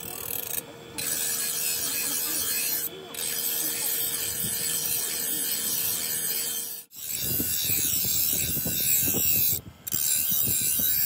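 Bench grinder wheel grinding the steel blade of a billhook forged from leaf spring, a steady harsh hiss with a few short breaks.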